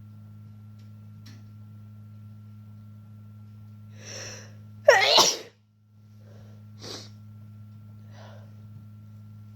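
A woman's loud sneeze about five seconds in, preceded by a drawn-in breath and followed by a couple of short breaths or sniffs; she has a cold and is inducing the sneezes. A steady low electrical hum runs underneath.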